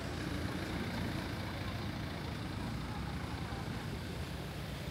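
A motor vehicle's engine running close by in street traffic: a steady low rumble.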